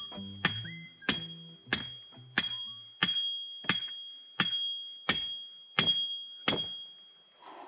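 Steady hammer blows on metal, about ten strikes evenly spaced, each ringing at the same high pitch. Background music sits under the first few seconds.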